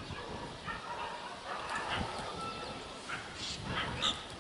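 Pied mynas calling: a string of short harsh calls and whistles, with a quick warbled trill about three seconds in.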